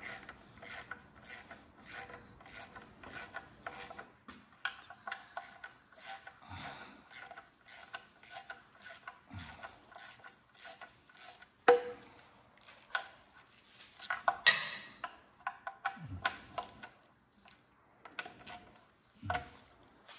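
Hand socket ratchet on a long extension clicking in quick runs as the small M6 bolts of a Toyota RAV4's automatic transmission pan are tightened by hand, with a couple of louder knocks in the middle.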